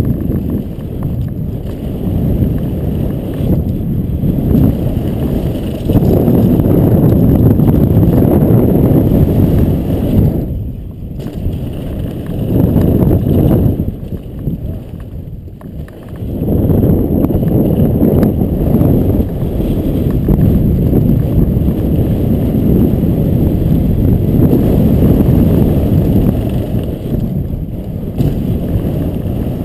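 Wind rushing over a riding camera's microphone at speed, mixed with mountain bike tyres and frame rattling on a dirt trail; the noise drops away briefly twice, about a third of the way in and again about halfway.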